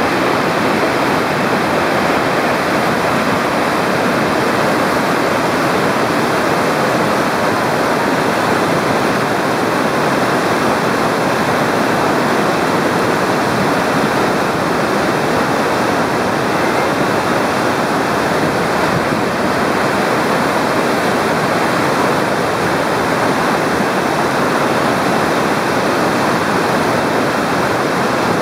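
Loud, steady roar of a big whitewater river rapid.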